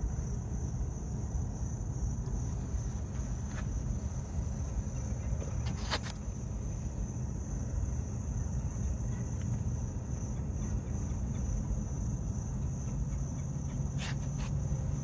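Steady high-pitched trilling of insects over a low, even outdoor rumble, with a few small clicks about a third of the way in, near the middle, and twice near the end.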